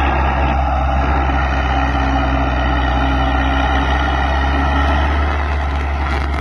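New Hindustan 60 hp tractor's diesel engine running steadily under load while pulling a disc harrow through the field.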